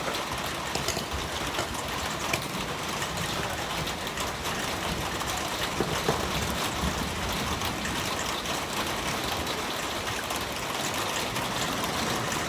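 Heavy rain pouring down steadily, with a few faint sharp taps here and there.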